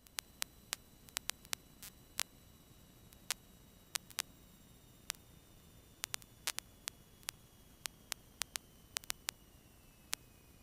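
Static clicks and pops on a cockpit radio/intercom audio feed: sharp, irregular ticks a few times a second over a faint hiss, with a faint high whine that slowly falls in pitch.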